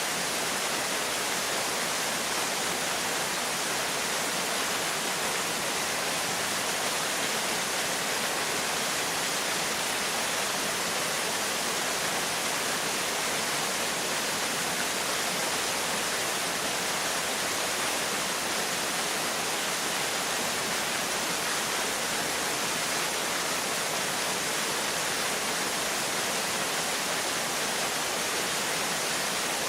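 Small waterfall, about 6 m high, pouring steadily into its pool: an even, unbroken rush of falling water.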